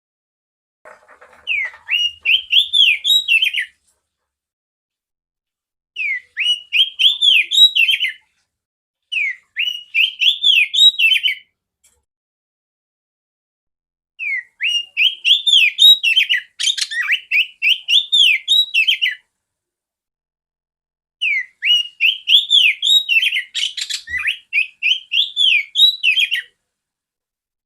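Female oriental magpie-robin calling: five bouts of quick, repeated rising-and-falling notes, each bout lasting two to five seconds, with silent pauses between them.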